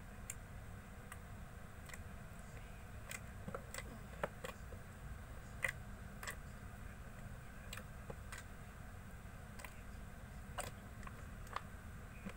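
Slime being kneaded and mixed by hand, giving small sticky clicks and pops at irregular intervals, a couple of dozen in all, with two louder pops in the first half.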